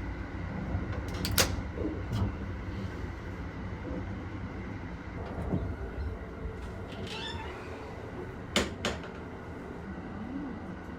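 Japanese overnight sleeper train running, heard as a steady low rumble inside the carriage. Two sharp clicks or knocks stand out, about a second and a half in and again about eight and a half seconds in, like a door or latch.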